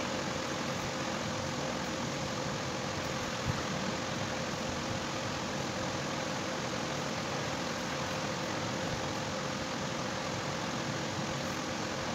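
A steady mechanical hum and hiss at an even level, with one constant tone running through it. A single brief click about three and a half seconds in.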